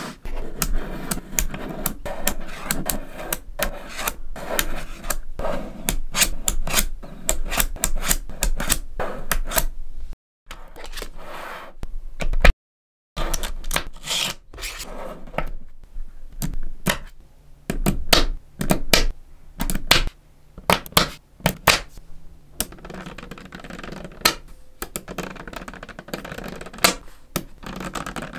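Small neodymium magnetic balls clicking and clacking as they snap together and are pressed into strips and sheets by hand, an irregular rapid patter of sharp clicks. The sound drops out to dead silence twice, briefly, around ten and thirteen seconds in.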